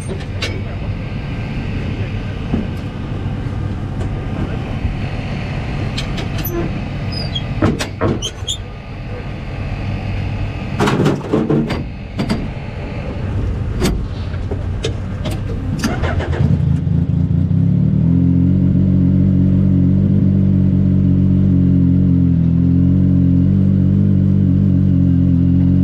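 A car engine comes in about two-thirds of the way through and settles into a steady idle. Before that, general pit-area noise with scattered sharp clicks and knocks and a few brief voices.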